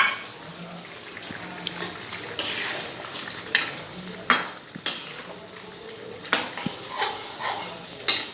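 A spatula stirring chilli chicken in a kadai, with several sharp knocks and scrapes against the pan over a steady sizzle, as cornflour slurry is mixed in to thicken the gravy.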